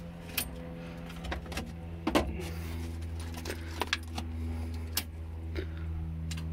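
Ignition key turned to start on a derelict Hitachi UH123 excavator: a series of sharp clicks and key rattles, the loudest a little over two seconds in, but the starter does not crank the engine. Only the starter relay clicks, typical of batteries too weak to turn the starter. A steady low hum runs underneath.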